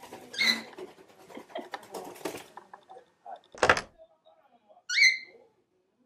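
A budgerigar chattering softly, with a sharp chirp near the start. A single loud knock comes about three and a half seconds in, and near the end a pet bird gives one short rising call.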